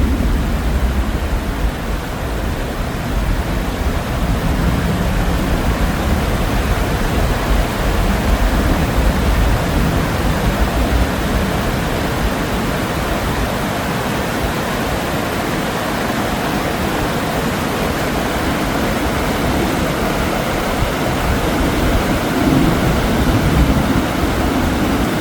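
Steady rushing of flowing river water, with a low, uneven rumble underneath that fades about halfway through.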